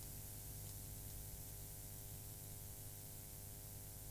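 Faint steady hiss and low electrical hum of the recording's background noise, with no other events.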